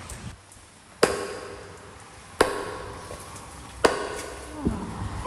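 Three heavy blows of a hand striking tool on wood, about a second and a half apart, each ringing briefly as it dies away.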